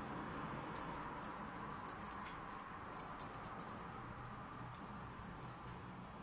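Small bells on a feather wand cat toy jingling in irregular bursts as kittens bat and bite at it.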